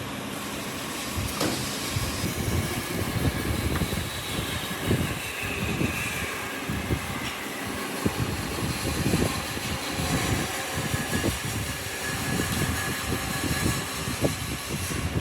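Wood lathe running with a tool cutting the spinning wood: a steady rumble with irregular knocks and scraping, and a whine that slides down in pitch a few seconds in.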